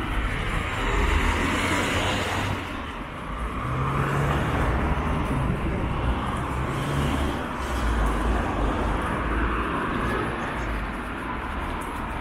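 Road traffic on a busy street: cars and heavier vehicles pass one after another, with engine rumble and tyre noise swelling as each goes by. A steady low engine hum runs through the middle.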